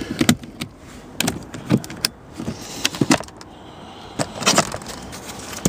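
Clicks, knocks and rattles of a vehicle's plastic interior side-panel cover being pried loose and handled. The knocks come irregularly, about a dozen of them.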